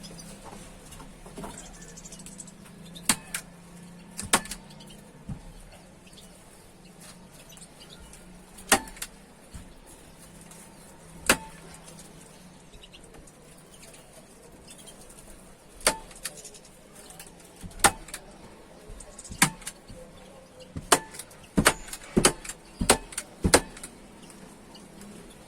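A series of sharp, separate clicks and knocks, a second or more apart at first and coming faster and louder near the end.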